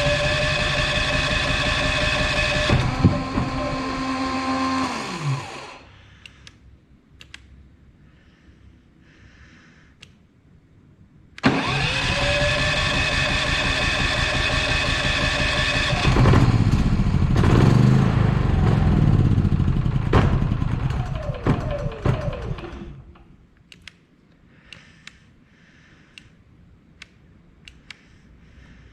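Dual-fuel portable generator running on propane, electric-started. It runs for about five seconds, then dies and spins down. A few seconds later it is started again, runs about ten seconds and dies again.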